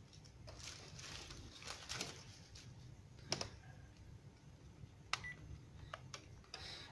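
Faint handling noise from a plastic cordless phone handset being turned over in the hands: soft rubbing, then a few light plastic clicks, the sharpest about three seconds in.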